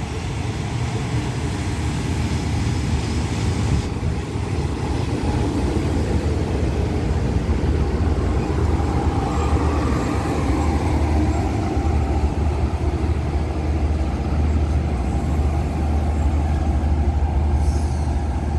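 Diesel railcar train rolling in alongside the platform, its underfloor diesel engines giving a steady low drone as the cars slide past and slow for the stop.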